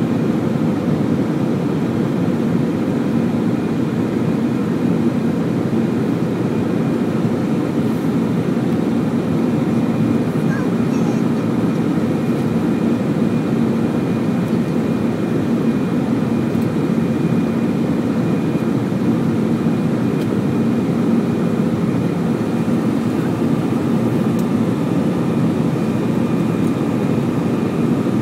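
Steady cabin noise inside an Airbus A320 climbing after takeoff: the jet engines and rushing air drone evenly and deep, with a few faint steady tones running above.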